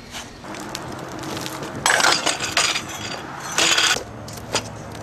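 BMX bike rattling and scraping on concrete, with short knocks and two louder bursts of harsh scraping noise about two seconds in and again past three and a half seconds.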